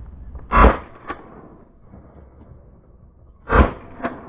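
Two shotgun shots about three seconds apart, each followed about half a second later by a fainter sharp crack, over low wind noise.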